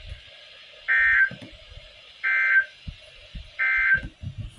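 Emergency Alert System end-of-message data bursts: three short, identical buzzy digital bursts a little over a second apart, signalling the end of the severe thunderstorm warning.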